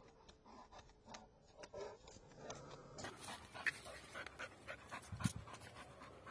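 Pit bull panting close by, with many light clicks and scuffs. There is a single low thump about five seconds in.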